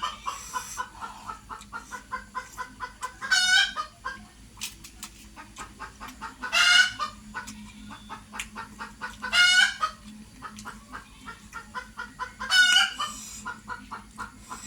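Chickens clucking in a quick run of short notes, broken by four loud calls about three seconds apart.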